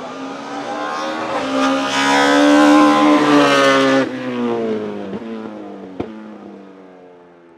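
BMW 320i E36 STW race car's 2.0-litre S42B20 four-cylinder with individual throttle bodies, running at high revs as the car passes. The note builds to its loudest about three seconds in, drops abruptly at about four seconds, then fades with falling pitch as the car pulls away, with a single sharp crack about six seconds in.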